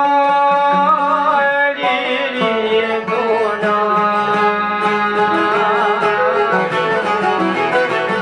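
Albanian folk song played on long-necked plucked lutes (çifteli and sharkia) with a man singing. A long, wavering held vocal note fills about the first two seconds, then the strings carry a quick, ornamented melody over a low drone.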